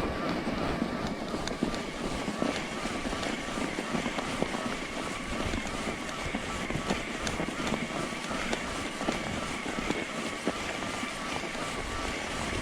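Cannondale Moterra SE e-bike ridden through snow: steady tyre and drivetrain noise with a thin steady whine, small scattered clicks, and wind on the microphone.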